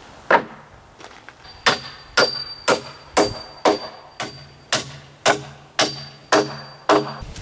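Claw hammer driving nails into a galvanized steel joist hanger, fastening it to a wooden deck beam: about a dozen steady blows, roughly two a second, each with a high metallic ring.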